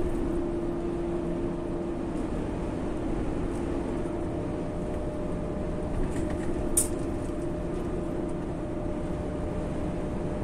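Steady engine hum and road noise heard inside a truck cab cruising on a highway. A short high-pitched click sounds once, about seven seconds in.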